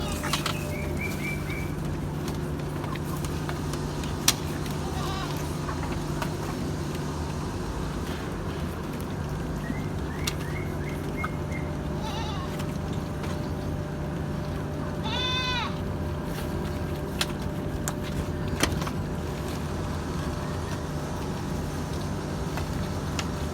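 An Etawa crossbreed goat gives one short bleat, rising and falling, about fifteen seconds in, over a steady low hum. A few short high chirps and sharp clicks are heard as well.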